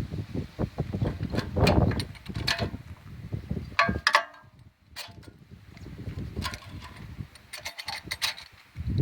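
Irregular clicks, light knocks and rustling from hands and hand tools working on a small-engine carburetor as it is taken apart.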